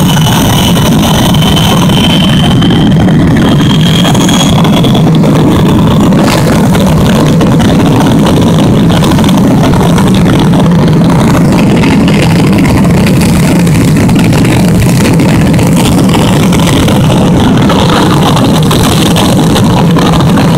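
Jet truck turbine engines running at the starting line: a loud, steady roar, with a faint high whine rising slightly over the first few seconds and then fading out.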